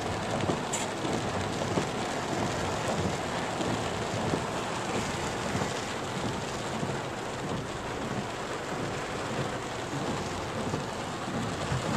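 Heavy rain falling steadily on the roof and windscreen of a four-wheel drive, heard from inside the cabin.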